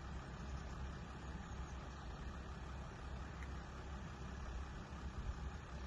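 A car engine idling steadily, heard as a low hum.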